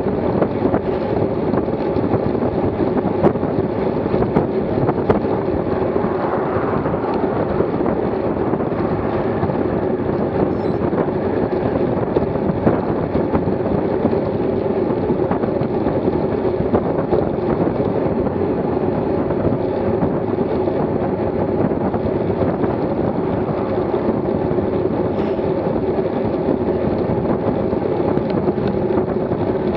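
Steady rush of wind on the microphone and road noise from a road bike riding at about 27 mph.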